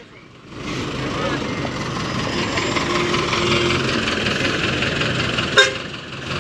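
Mercedes-Benz city bus's rear-mounted diesel engine running steadily with a low hum, and one short toot of a bus horn about five and a half seconds in.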